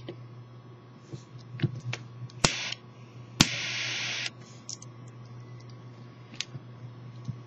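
Butane torch lighter clicked twice. The first click gives a brief hiss of gas. The second, about a second later, is followed by a steady jet hiss for just under a second that then cuts off, amid small handling clicks and a steady low hum.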